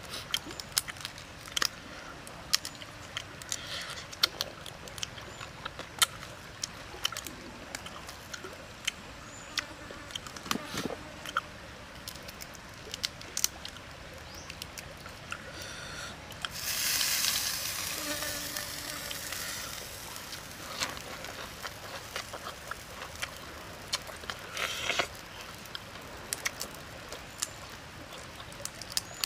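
Cooked shrimp shells being cracked and peeled apart by hand: a run of sharp crackles and clicks throughout. A louder hissing, crackling stretch lasts a few seconds a little past the middle.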